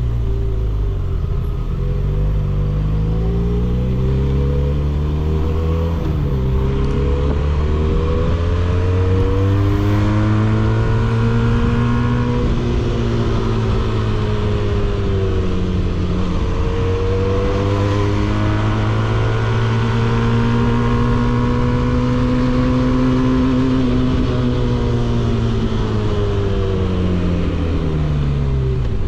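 A 300 cc motorcycle's engine and exhaust heard on board while riding. The engine pitch climbs and falls in long sweeps as the rider accelerates and eases off, with a sudden drop about six seconds in, like a gear change.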